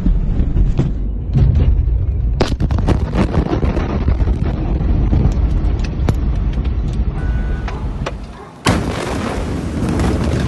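Many sharp cracks and pops over a heavy low rumble, from the fire and explosions at the port warehouse. A sudden loud blast comes near the end.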